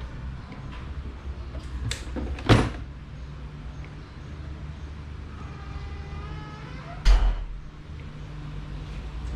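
Sharp knocks and clatter of electric fan parts being handled during disassembly: two knocks about two seconds in and a louder one about seven seconds in, just after a short squeaking scrape, over a steady low hum.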